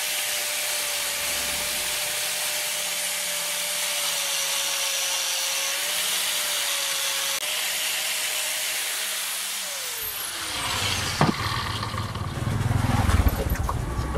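Angle grinder running steadily with a disc against the steel head of a ball-peen hammer: a constant motor whine over a hiss. About ten seconds in it is switched off and the whine falls away as the disc spins down. A sharp knock and some handling noise follow.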